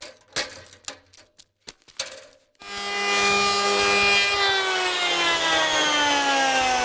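A few scattered clicks and knocks. Then, about two and a half seconds in, a handheld electric power planer starts up loud on the wooden planks of a boat hull. Its motor runs steadily, then slides down in pitch as it winds down.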